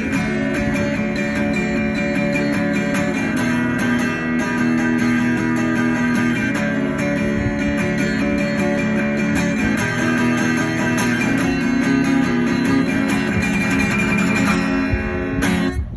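Guitar strummed steadily through a song's instrumental outro, with no singing, stopping abruptly near the end.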